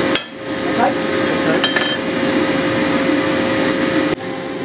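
Hand hammer tapping a scrolled steel bar on an anvil, a sharp blow just after the start and a shorter ring about a second and a half later, the steel ringing briefly each time. Under it a steady motor hum runs, cutting off suddenly near the end.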